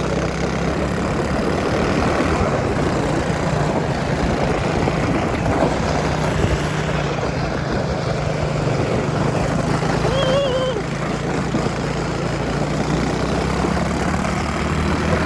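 Mini pocket bike's small single-cylinder engine running steadily at a fast idle, with no revving. A brief high warbling sound comes about ten seconds in.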